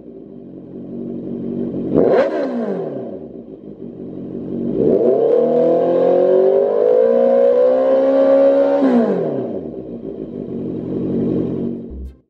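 Honda CB650F's inline-four engine through a Lextek CP1 aftermarket silencer, idling on the stand: one quick rev about two seconds in that falls straight back, then revs held up and climbing slowly for about four seconds before dropping back to idle.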